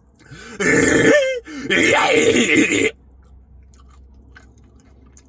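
Loud, exaggerated eating sounds from a mouthful of ice cream with candy pieces. There are two loud noisy bursts with a groaning, voice-like tone in them in the first three seconds. Quieter chewing clicks follow.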